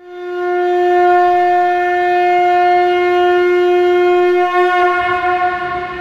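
Conch shell (shankh) blown in one long steady note that swells up in about half a second, holds, then wavers and fades near the end.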